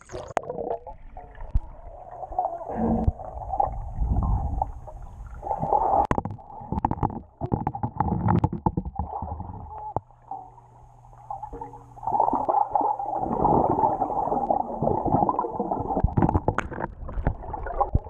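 Muffled gurgling and sloshing of pool water, heard by a camera held underwater. It rises and falls in surges, with scattered knocks and clicks.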